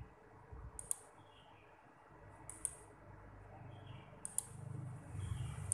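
Computer mouse clicking sharply three times, about one click every second and three quarters, over a low hum that grows louder in the second half.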